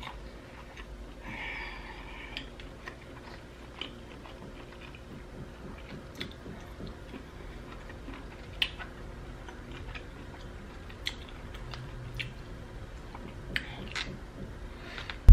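Person chewing a mouthful of spicy seafood boil, with scattered sharp wet mouth clicks and smacks over a low steady room hum.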